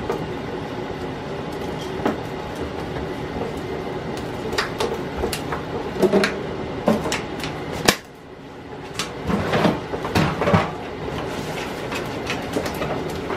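Batter being stirred in a plastic tub: scattered clicks, taps and scrapes of the utensil against the plastic over a steady background hum, with the sound dropping away briefly about eight seconds in.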